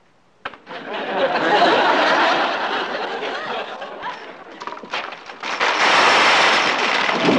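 Sitcom laugh track: studio audience laughter breaking out suddenly about half a second in, easing off around the middle and swelling again near the end.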